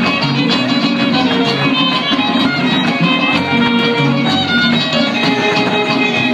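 A son huasteco trio playing an instrumental passage live: fiddle melody over the strummed jarana huasteca and huapanguera.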